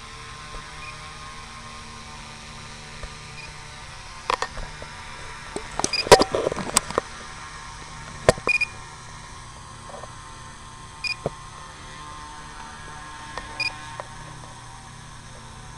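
Tricopter hovering under altitude hold, its motors and propellers giving a faint steady hum. Scattered sharp clicks and crackles come over it, loudest about six and eight seconds in.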